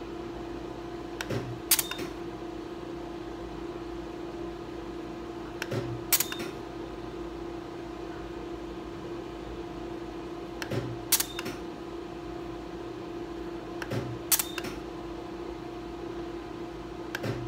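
Candela GentleYAG Nd:YAG hair-removal laser firing single pulses at the skin about every four seconds, four times. Each shot is a soft click followed about half a second later by a sharp snap, the pulse fired with its cryogen cooling spray. A steady hum from the laser unit runs underneath.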